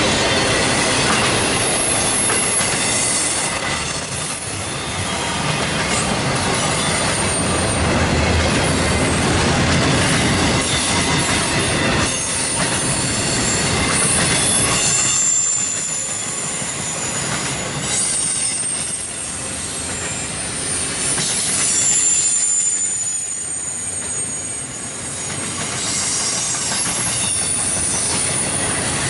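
Double-stack intermodal freight train's well cars rolling past at speed: a steady rumble and rattle of steel wheels on the rail, with thin high wheel squeals coming and going in the second half.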